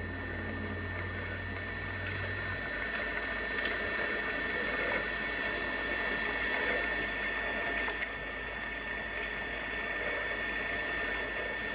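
Steady hiss with a constant high-pitched whine, the recording's own background noise in quiet woods; a low hum cuts out about two and a half seconds in, and there are a couple of faint ticks.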